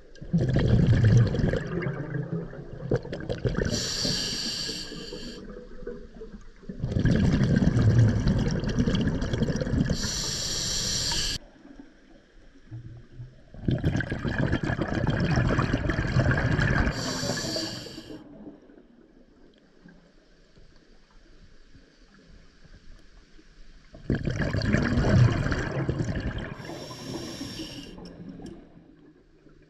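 Scuba diver breathing underwater through a regulator: four breaths, each a loud burst of exhaled bubbles followed by the regulator's hiss on the inhale, the last one after a longer pause.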